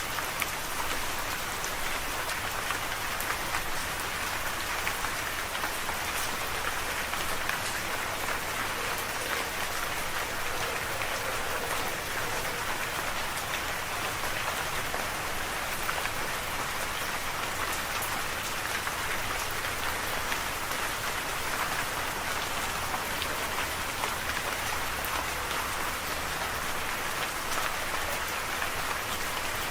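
Steady rain falling: a constant, even hiss with many small drop ticks scattered through it.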